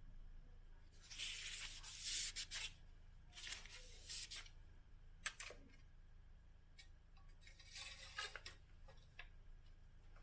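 Several short spells of rustling and rubbing, with a single sharp click about five seconds in.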